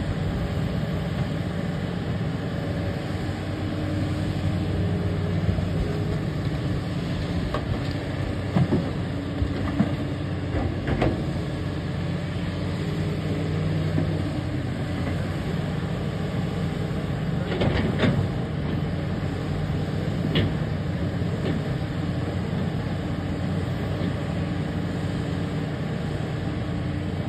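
Kobelco SK380 HD hydraulic excavator at work loading a dump truck: a steady diesel engine hum, with several sharp clanks and thuds of the bucket and rock scattered through.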